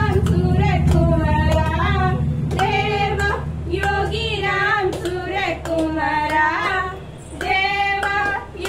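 A high female voice singing a devotional bhajan in long, bending notes over a low steady hum, with occasional sharp clicks.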